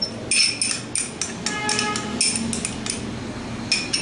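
Metal spoon tapping and scraping against a small glass cup, knocking the last ginger-garlic paste out into the mixing bowl. A string of quick clinks, one ringing on briefly about a second and a half in.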